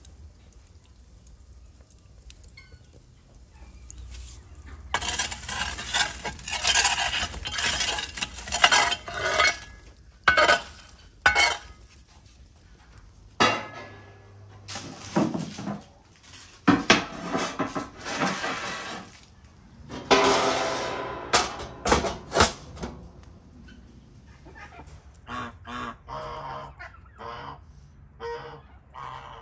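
A metal baking tray of whole pumpkins scraping and clattering in several loud spells, with ducks quacking near the end.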